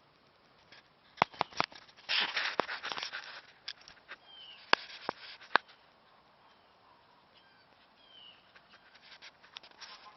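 Sharp clicks and a brief rustle of handling or movement, three clicks in the first two seconds and three more around the middle, with faint short bird chirps in the background.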